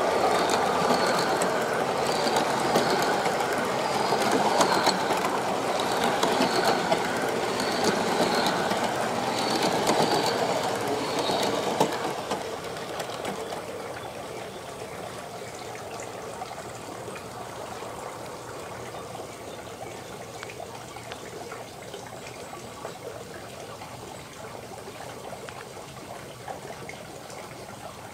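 G-scale (1:29) garden-railway train, a steam locomotive and passenger cars, rolling past close by on outdoor track with wheels clattering over the rails. It fades to a quieter rumble about twelve seconds in as the train moves away.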